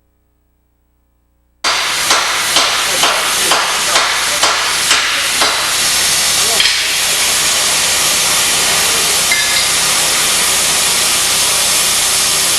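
After a moment of silence, a loud steady hiss starts suddenly, with eight sharp, even knocks about two a second over it and one more a little later; the hiss then runs on alone.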